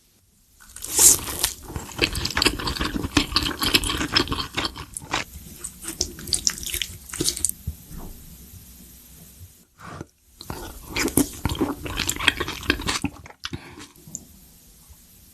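Close-miked wet eating sounds of spicy Korean noodle soup: slurping and chewing with dense crackly mouth noises, in two stretches with a short pause about ten seconds in.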